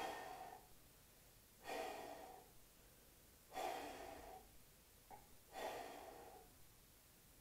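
A man breathing hard from the effort of inverted sit-ups while hanging upside down. Four forceful exhales come about two seconds apart.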